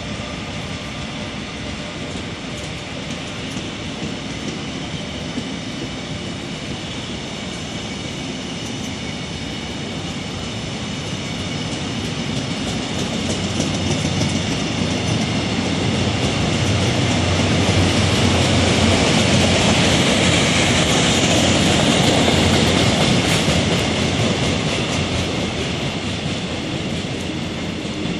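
Saemaeul passenger train running through a station at speed, its coaches' wheels rumbling and clattering over the rails. The noise swells to its loudest a little past halfway, then eases off.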